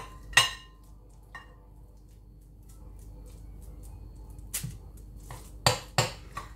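Ice cream scoop knocking and clinking against a glass mixing bowl while meatball mix is scooped out. A handful of sharp knocks: one about half a second in and a cluster of several in the last two seconds.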